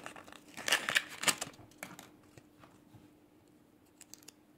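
Stickers being peeled off the case of a Zippo lighter: a quick run of crackly clicks and rustles during the first two seconds, fading, then a few faint ticks near the end.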